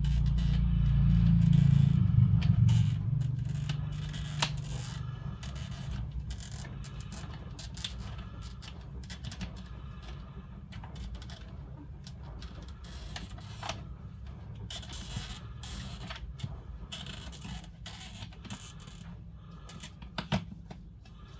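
Scattered clicks, taps and scrapes of hands and tools working on a laptop's plastic case and screen. A low rumble in the first few seconds fades out.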